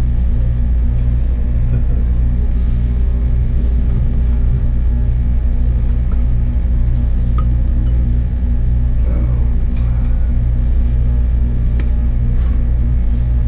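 Steady, loud low mechanical hum that does not change, with a few faint short clicks like cutlery on a plate.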